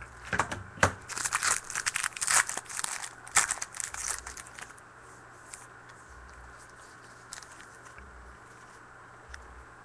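Trading card pack wrapper being torn open and crinkled by hand, a dense crackling rustle that stops about halfway through.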